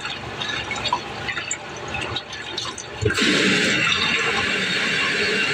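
Water splashing and trickling in a kitchen sink as it is rinsed out. About three seconds in, the faucet opens to a steady full stream.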